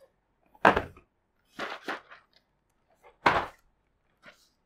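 A few separate knocks or thuds, about five, the loudest under a second in and another a little past three seconds, with silence between them.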